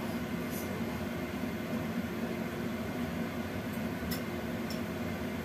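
Steady whirring hum of a small fan motor running, mixed with the hiss of a gas burner flame under a lidded wok, with a few faint ticks.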